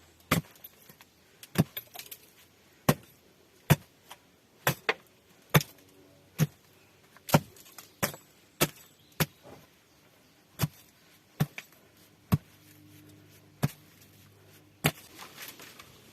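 A run of sharp single knocks from a hand tool striking, about twenty blows at an irregular pace of one or two a second.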